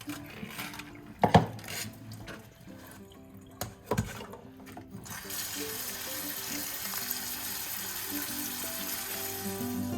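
Kitchen tap turned on about five seconds in, water running steadily into the sink. Before it, two sharp knocks.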